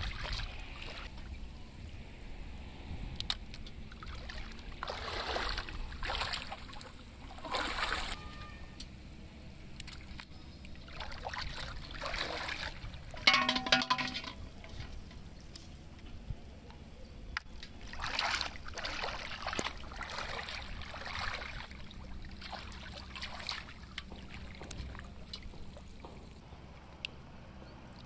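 Water splashing, sloshing and trickling in irregular bursts every few seconds. The loudest splash comes about halfway through, together with a brief pitched sound.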